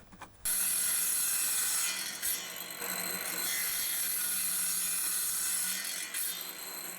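Power saw cutting a short piece of wood: a steady, noisy cutting sound that starts about half a second in and runs almost to the end, dipping briefly around two seconds in.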